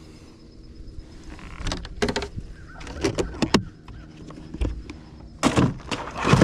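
Knocks and rattles of gear being handled on a bass fishing boat: several sharp knocks about two and three seconds in, a dull thud, then a louder rushing burst near the end.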